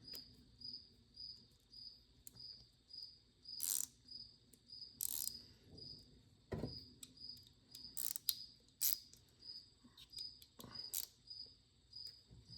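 A cricket chirping steadily, about three short high chirps a second, with a handful of sharp clicks and knocks from tools being handled, which are the loudest sounds.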